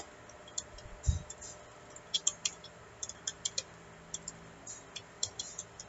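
Computer keyboard being typed on: irregular runs of light key clicks, with a low thump about a second in.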